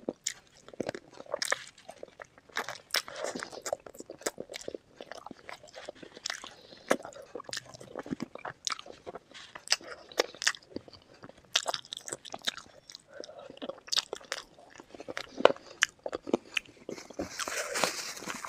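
Close-miked eating of spicy chicken feet curry with Maggi noodles and green chillies: biting and chewing with many sharp, irregular crunches and clicks. A brief hissing noise comes near the end.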